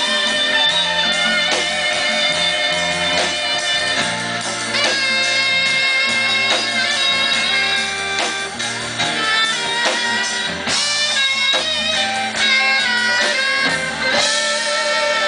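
Live rock and roll band playing, with an electric guitar taking the lead over a bass line.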